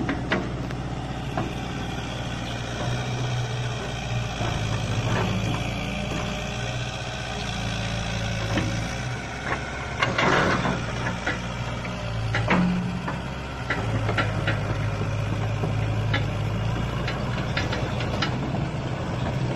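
Diesel engine of a Cat tracked hydraulic excavator running steadily as the boom and bucket work, its low hum shifting slightly in pitch. Scattered short knocks and clanks are heard, thickest about halfway through and toward the end.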